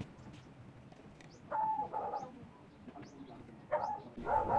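Birds calling: a short call about a second and a half in and another near the end, with faint high chirps in between.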